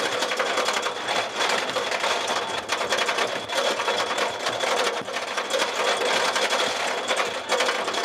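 Wooden roller coaster's lift hill: the lift chain and the train's anti-rollback dogs clatter in a fast, even rhythm as the train is hauled up the climb. A faint steady high whine runs underneath.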